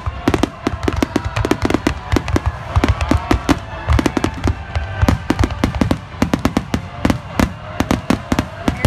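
A fireworks barrage: rapid, overlapping bursts of shells, several loud bangs and crackles a second, without a break.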